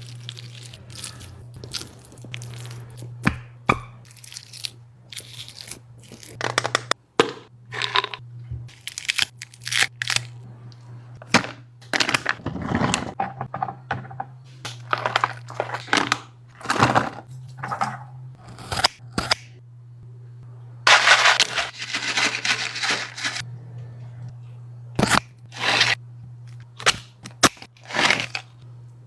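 Dog eating: irregular crunches, cracks and smacks of chewing, with a denser spell of wet noisy eating about 21 seconds in, over a steady low hum.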